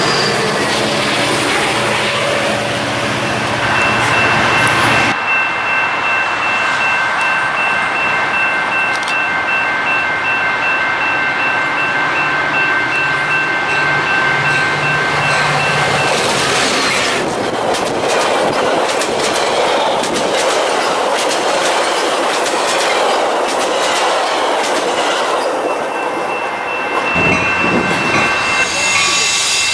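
Metra commuter trains passing through a station: a diesel locomotive's engine running as it goes by close, then the rumble and clickety-clack of passenger-car wheels over the rail joints. Steady high tones sound for long stretches in between.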